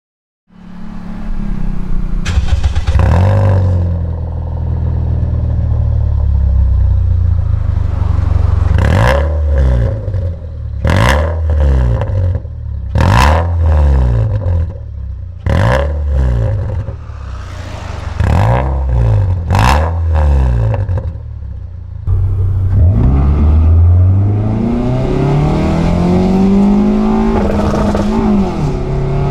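Toyota Vios NCP150's 1.5-litre four-cylinder engine heard through an aftermarket Kakimoto GT Box Hyper Rev muffler with a 2.3-inch inlet. It idles steadily, then is revved in about six short blips. Later the car pulls away, the engine note rising as it accelerates.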